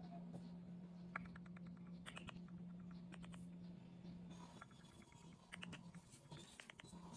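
Faint quick runs of small clicks and taps from a smartphone being handled and its touchscreen worked, over a low steady hum.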